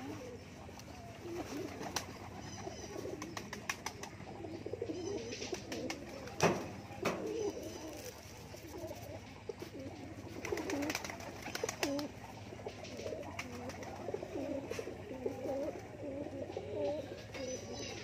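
A flock of domestic pigeons cooing over one another as they feed, the low wavering coos going on throughout. Scattered sharp taps run through it as they peck at grain, a loud one about six seconds in.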